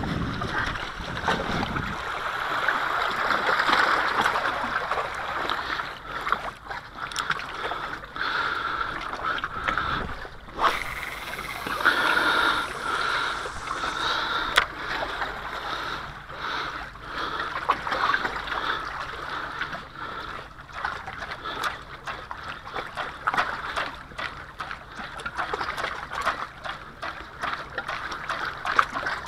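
Small sea waves lapping and gurgling against shoreline rocks, rising and falling unevenly, with a few sharp clicks.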